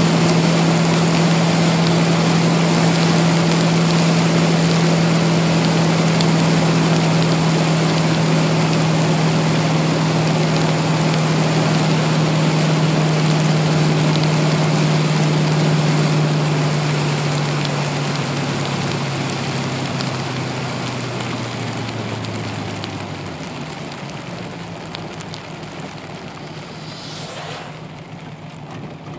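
A car driving on a wet road in heavy rain, heard from inside the cabin: a steady engine drone under the hiss of rain and tyre spray. About two-thirds of the way through, the engine note drops in pitch and fades as the car slows.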